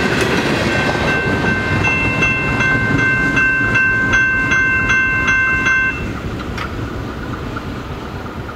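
Grade-crossing warning bell ringing at about three strikes a second, then stopping about six seconds in, over the rumble of a passing train.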